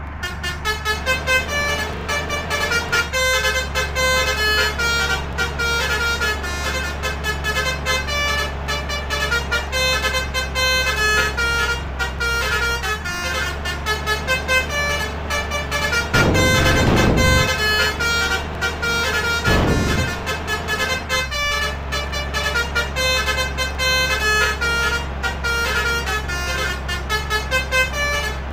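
Bus's basuri multi-tone 'telolet' horn playing a running melody of short notes, over the steady low drone of the bus engine. Two louder rushing noises break in about 16 and 19 seconds in.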